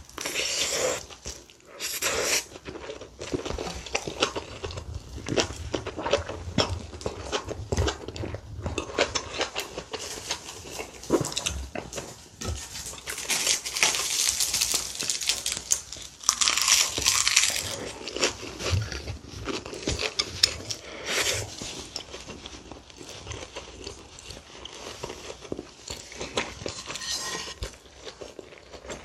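Close-miked eating: chewing and biting of rice and kimchi stew with small wet mouth sounds and crunches. A bit past halfway there are two spells of crisp crinkling as a sheet of roasted seaweed (gim) is handled and wrapped around rice.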